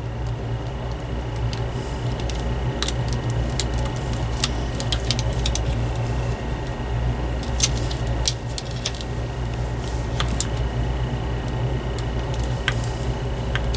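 Scattered small clicks and taps of plastic and metal parts being handled as a wire is worked out of a personal fan's switch, over a steady low hum.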